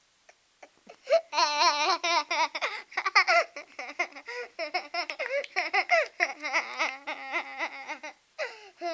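A young boy laughing hard, a long unbroken run of giggling that starts about a second in and stops shortly before the end.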